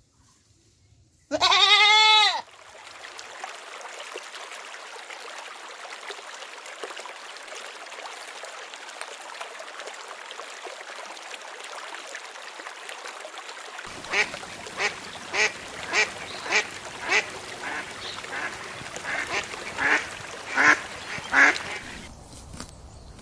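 One loud, drawn-out animal call about a second in, then a steady hiss. In the second half comes a run of about a dozen short duck quacks, growing louder near the end.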